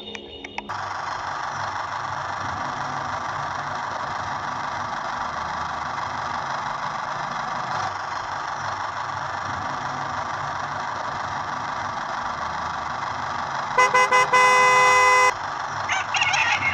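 Small DC electric motor running steadily with a high whine, starting about a second in. About 14 seconds in, a horn honks for about a second and a half.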